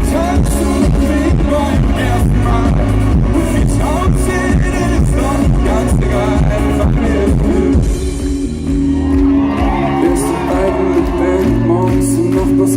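Pop-rock band playing with a singer's voice over the music, briefly easing off about two-thirds of the way through before carrying on.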